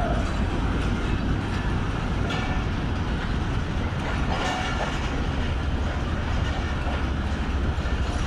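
Passenger coaches rolling slowly past on the track, their wheels rumbling and clattering over the rails. A couple of brief higher-pitched squeals come from the wheels.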